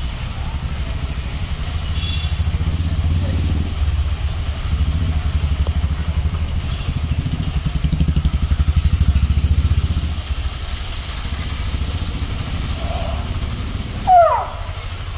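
A motor engine running, a low throbbing hum that is loudest through the middle and fades about ten seconds in. A few short, sharp falling squeals come near the end.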